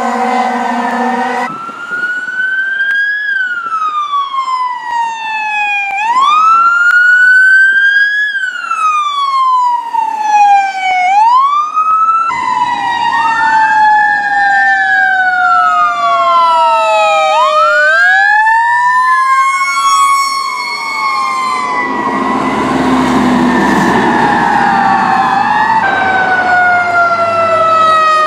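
Fire engine sirens wailing, each sweep rising and falling in pitch over two or three seconds. In the middle two sirens overlap. Near the end a louder stretch brings in heavy truck engine rumble.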